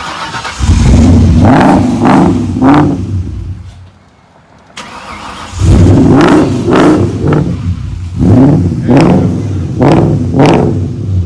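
Mustang's swapped-in Lincoln Mark VIII 4.6-litre DOHC V8 revving in short repeated blips as the car is driven forward. It drops away about four seconds in, then comes back and revs several more times.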